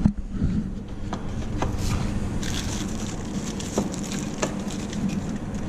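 Packaging of a set of LED license plate lights being handled and opened: crinkling and crackling with scattered light clicks and taps, over a steady low hum.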